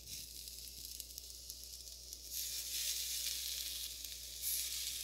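Raw chicken wings sizzling as they are laid with tongs into an air fryer basket preheated to 400 degrees. The steady hiss grows louder about two seconds in as more wings go onto the hot basket.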